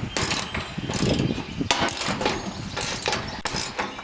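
Irregular metallic clicks and rattles from a metal mechanism on a diamond-plate truck tool box being worked by hand, with one sharper click partway through.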